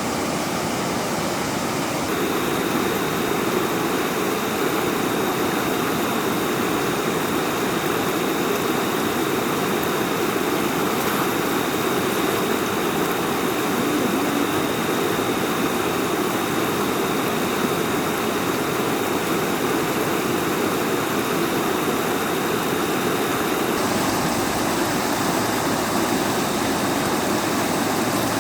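Steady rush of river water flowing over rocks, an even unbroken roar.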